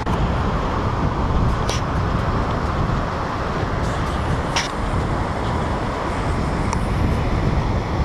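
Steady rush of small waves breaking on a sandy beach, mixed with wind buffeting the microphone, with a few faint brief clicks.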